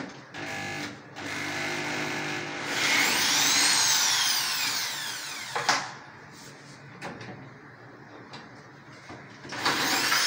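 Corded electric hand drill running: its motor whine climbs, peaks and falls back over the first six seconds. After a quieter stretch with a few small clicks, it starts up again near the end.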